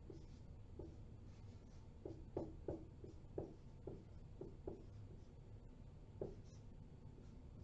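Faint handwriting: a dozen or so short, irregular scratches and taps of a pen, busiest in the middle, over a low steady room hum.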